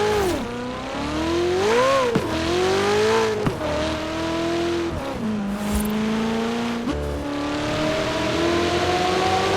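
Ferrari 488 Pista's twin-turbo V8 revving. The revs rise and drop sharply several times in the first few seconds, hold steady, then climb slowly and steadily toward the end.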